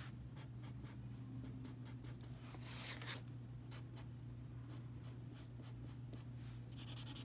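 Felt-tip marker scratching across paper in many quick, short colouring strokes, louder for a moment about three seconds in, over a steady low hum.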